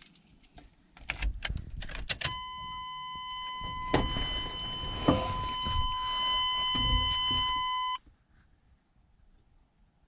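Keys rattling and clicking at the ignition of a 1994 Chevy Suburban, then a steady electronic warning tone that sounds for about six seconds and cuts off suddenly, with a few soft thumps under it.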